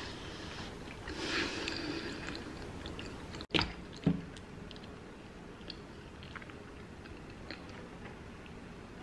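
A person eating French toast with a fork: soft close-up chewing, with two sharp knocks about three and a half and four seconds in and faint small ticks after them.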